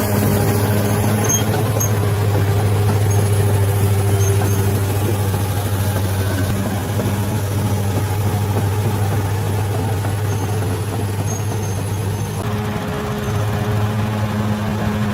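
Bulldozer's diesel engine running steadily with a deep, even hum. The sound changes briefly about twelve seconds in, then settles back.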